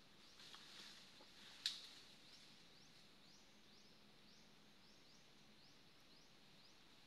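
Near silence: faint outdoor ambience with a soft, high, rising chirp repeating about every two-thirds of a second, and one sharp click a little under two seconds in.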